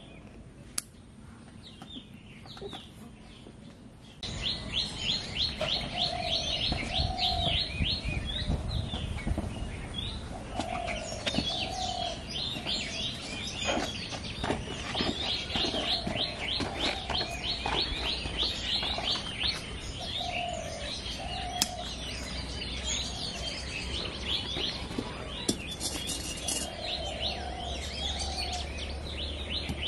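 Birds chirping in a rapid stream of short high notes, with a lower warbling call that comes back every few seconds; the chorus gets much louder about four seconds in. A few faint knocks and a low rumble run underneath.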